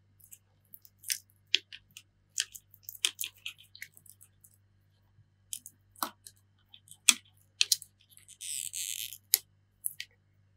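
Small clicks, taps and scratches of fingers and small tools on an opened iPhone 7's internal parts as brackets and components are handled and lifted out. Near the end comes one brief hissing scrape of about a second.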